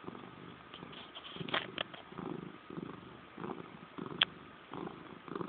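Domestic cat purring close up, the purr swelling and fading with each breath about every half second. A few faint clicks about a second and a half in and one sharp click about four seconds in.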